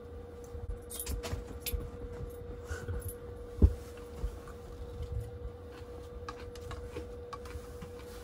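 Fork clinking against a plate and salad bowl during a meal, a scatter of small metallic clicks. About three and a half seconds in comes one loud, dull thump, and a faint steady tone hums underneath throughout.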